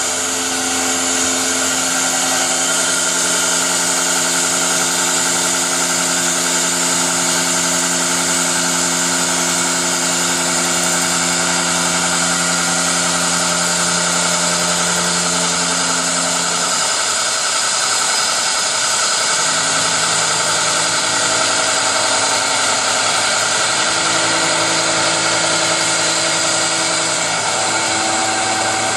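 Lathe converted for alloy-wheel diamond cutting, running steadily with a motor hum and a bright hiss. The hum drops slightly in pitch and changes about 17 seconds in.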